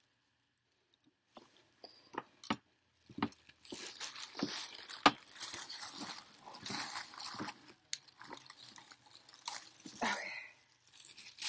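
Handling noise close to the microphone: rustling, with scattered sharp clicks and knocks, busiest in the middle stretch.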